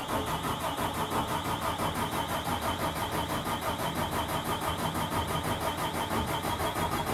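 Starter motor cranking a 24-valve 5.9 Cummins inline-six diesel in a steady pulsing rhythm, the engine turning over without firing while its injectors are being bled of air.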